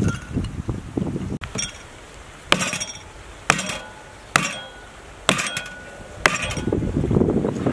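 Cleaver chopping into a cow's leg bone on a wooden chopping block: about six blows, roughly one a second, each a sharp crack with a short metallic ring.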